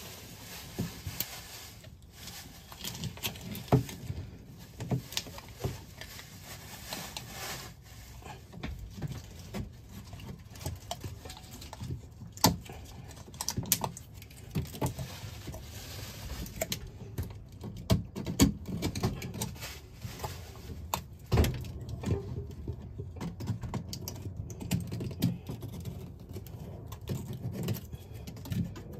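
Snap-off utility knife scraping and cutting around a fitting on a sink deck, with irregular small clicks and taps of the blade and handled parts, and a few sharper clicks.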